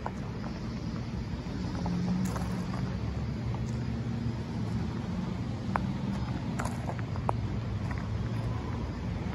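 Porsche 944's engine idling, a steady low rumble, with a few faint clicks over it.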